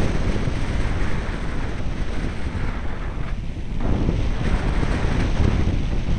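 Rushing airflow buffeting the onboard camera's microphone of an electric RC glider in flight, a steady noise strongest in the low end, with no motor tone heard.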